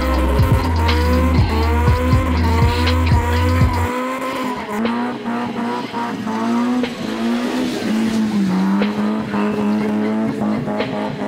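A car engine held at high revs in a smoky donut, its pitch wavering up and down as the throttle is worked, with tyres squealing against the pavement. A bass-heavy music beat plays under it and drops out about four seconds in.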